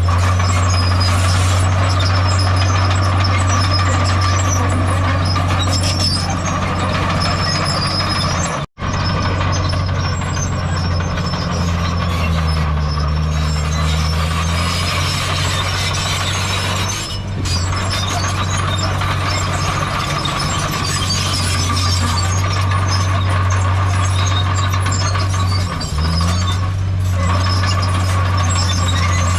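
Bulldozer's heavy diesel engine running steadily under load, its note dipping and recovering a few times as the load changes. There is a momentary break in the sound about nine seconds in.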